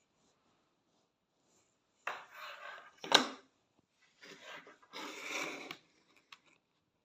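Handling noise: things rubbing and scraping against a hard surface for a few seconds, with one sharp knock about three seconds in.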